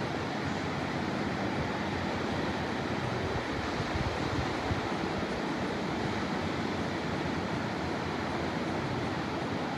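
Ocean surf breaking and washing on the beach, a steady rush, with wind blowing on the microphone.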